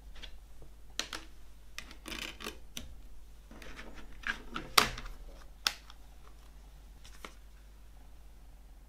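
Plastic CD jewel case handled on a wooden table: scraping and rubbing of the plastic and several sharp plastic clicks and snaps, the loudest about five seconds in.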